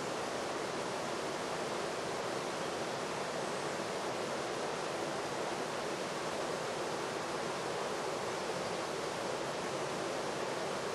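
Steady, even rushing noise with no separate events in it.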